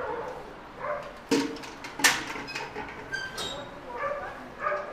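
Short, pitched animal whines and yips, broken by two sharp knocks about a second and two seconds in.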